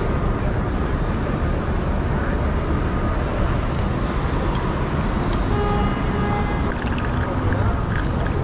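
Steady wind rush on the microphone of a moving electric scooter, heaviest in the low end, over the noise of city street traffic.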